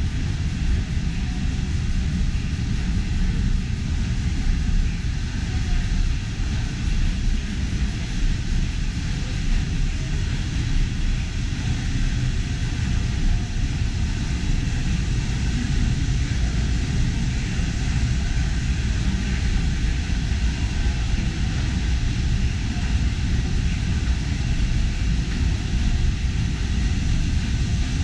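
Engine-room machinery of a Liberty ship underway: the triple-expansion steam engine and its auxiliaries running, a steady dense rumble with a hiss above it and no change in pace.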